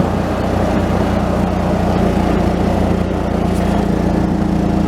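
Gas golf cart engine running steadily while still cold, not yet warmed up.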